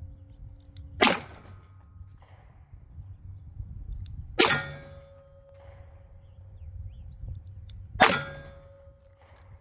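Three shots from a 2.5-inch Smith & Wesson 686 revolver firing .38 Special +P Federal 158-grain semi-wadcutter hollow points, spaced about three and a half seconds apart. A steady ringing tone lingers after each shot.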